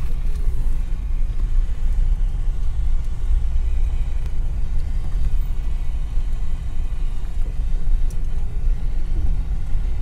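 Car driving slowly on a wet road, heard from inside the cabin as a steady low rumble of engine and road noise.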